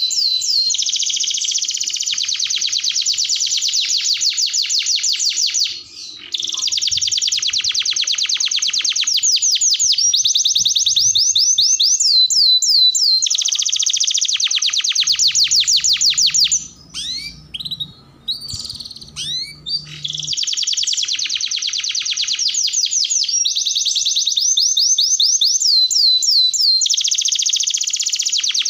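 Domestic canary singing a long song of fast rolling trills, each a rapid run of repeated notes. There is a brief break about six seconds in, and a pause of a few seconds past the midpoint broken only by a few scattered sliding notes.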